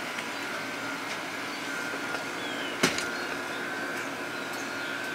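Steady background hum of an outdoor restaurant deck, with a faint steady tone, a few light ticks and one sharp click about three seconds in.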